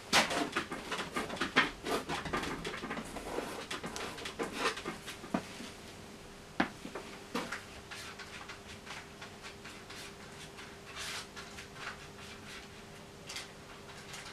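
Palette knife mixing paint on a palette: a quick run of wet scraping and tapping strokes for about the first five seconds, then scattered single taps and scrapes.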